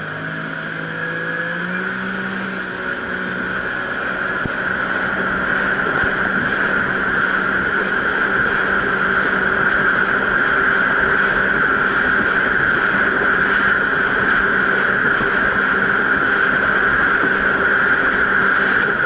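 Jet ski engine speeding up, rising in pitch over the first couple of seconds, then running at a steady high speed with water rushing past, growing louder over the first several seconds.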